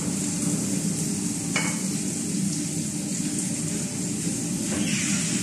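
Onions frying in a pan on a gas stove, a steady sizzle, stirred with a wooden spatula that knocks once against the pan about a second and a half in. A low steady hum runs underneath.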